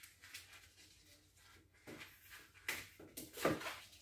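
Faint rubbing and squeaking of a long gold latex modelling balloon being handled and twisted, with a few short louder rubs in the second half, the loudest about three and a half seconds in.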